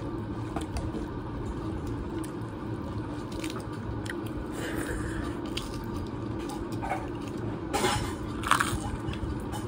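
A person eating rice and fried papad by hand: soft chewing and small clicks over a steady low hum, then two loud crisp crunches a little over half a second apart near the end as the papad is bitten.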